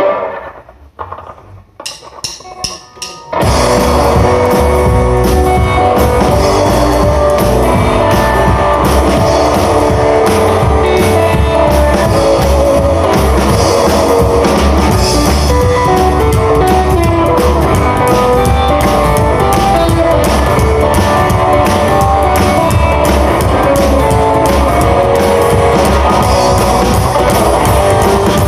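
Rockabilly band playing live: a few sharp clicks, then about three seconds in the full band comes in loud, with drums and guitar, and plays on steadily.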